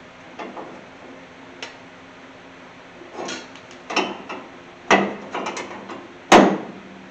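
Headlight bucket of a 1981 Chevy C10 being worked onto its adjusters: a series of hard clicks and clunks, several in quick succession around the middle, with the loudest knock near the end.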